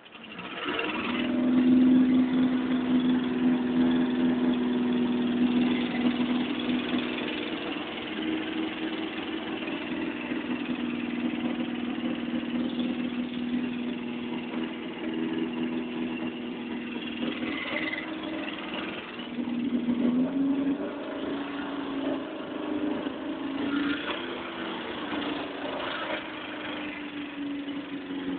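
Freshly repaired car engine idling steadily, with a brief rise and fall in pitch about twenty seconds in.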